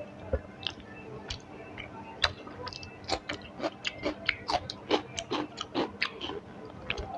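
Close-miked chewing with wet mouth smacks, a run of short clicks that grows quicker and denser about three seconds in.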